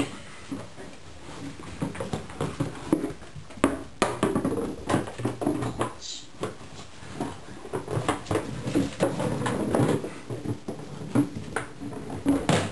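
Golden retriever puppies playing on a tile floor: an irregular run of clicks and knocks from scrambling paws and from toys and a plastic bottle being batted about, with a few short puppy vocal sounds mixed in.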